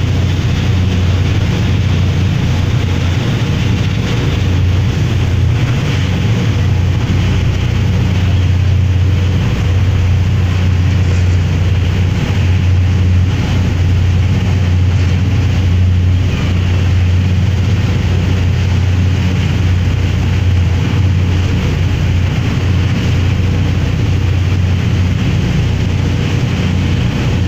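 High-speed passenger ferry under way at speed: a steady low engine drone under the rushing of its wake and wind across the open deck.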